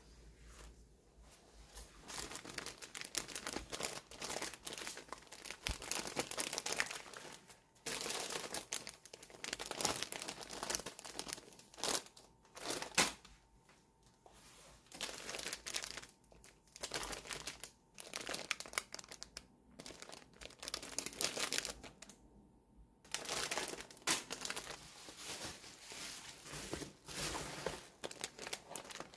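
Clear plastic packaging crinkling as it is handled, in bursts of a few seconds with short pauses between.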